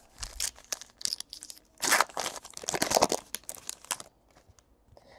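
Trading-card pack wrapper being torn open and crinkled by hand, in a series of short rustling bursts, loudest about two and three seconds in.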